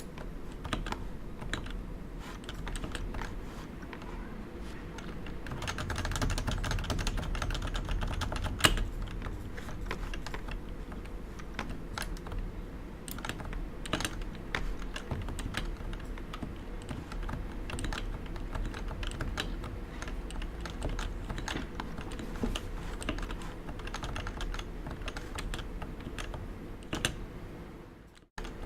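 Typing on a Realforce 87U tenkeyless keyboard with 55 g Topre electrostatic capacitive switches: a dense, continuous run of key strokes, with one sharper, louder stroke about eight and a half seconds in. The typing breaks off briefly near the end.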